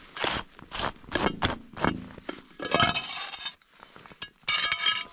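A gloved hand brushing and scraping snow off a black plastic well cap in short strokes, with knocks and clinks as the plastic cover is handled and opened. A longer, louder scrape comes near the end.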